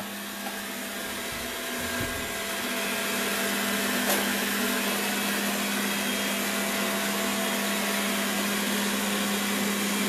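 MOVA Z500 robot vacuum running: a steady whir of its suction fan with a constant low hum, getting a little louder over the first few seconds. There is one faint click about four seconds in.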